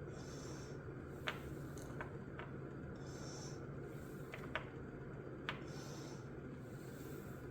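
A handful of light, sharp clicks, like small metal parts and tools being handled, over a steady low hum, with soft breathing close to the microphone every few seconds.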